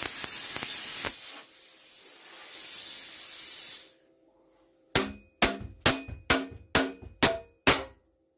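Arc welding on steel, a crackling hiss that stops about four seconds in. After a short pause come about eight sharp, ringing hammer blows on steel, roughly two a second.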